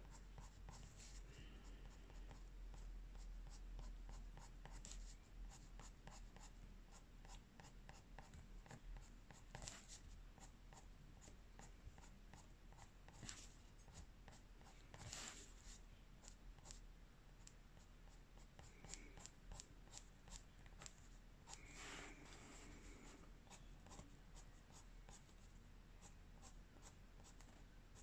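Faint scratching of a black coloured pencil on paper, laid down in quick short strokes, with a few sharper ticks.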